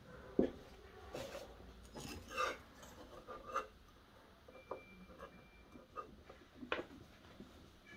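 Quiet handling noises as wooden handle scales are fitted onto a steel knife blade's tang: irregular light clicks, taps and short scrapes of wood and metal against each other and the bench, the sharpest knock about half a second in.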